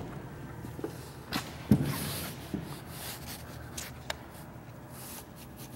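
Steel personnel door being opened and walked through: a few sharp clicks and knocks from the latch and door, the loudest a little under two seconds in.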